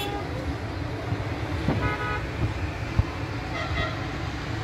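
Steady road-traffic rumble with short vehicle horn toots: one ending just at the start, another about two seconds in, and a fainter one near four seconds. A single knock at about three seconds.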